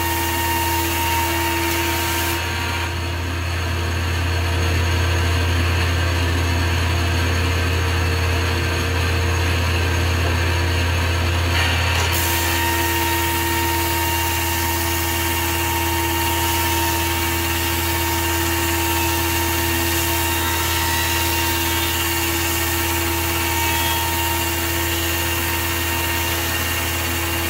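Grizzly G0891 15-inch planer with helical carbide cutterhead running steadily under a strong low hum from the dust collector, feeding a board through without the feed rollers skipping. The high hiss thins out for about ten seconds near the start, then returns.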